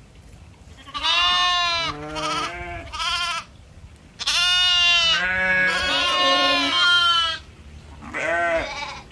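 Domestic goats bleating: several calls in a row, with two or more animals calling over each other in a long stretch in the middle, and one last short bleat near the end.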